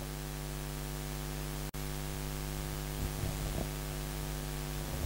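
Steady electrical mains hum with a ladder of evenly spaced overtones, cut out for a split second about two seconds in. A few faint soft knocks come a little past the middle.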